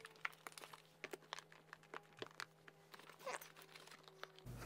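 Faint, scattered clicks and taps of plastic lids being pressed down and handled on silicone food containers.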